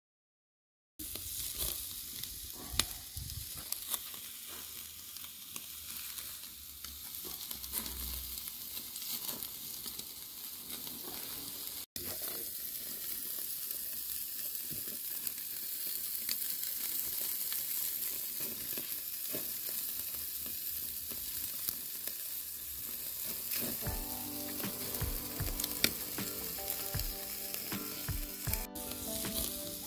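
Meat skewers sizzling on a charcoal grill: a steady hiss with many scattered pops and crackles, starting about a second in.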